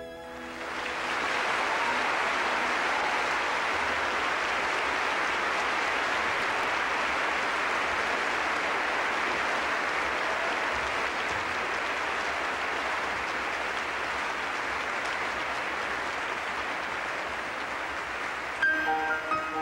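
A large concert audience applauding. The applause swells up in the first second and then holds steady.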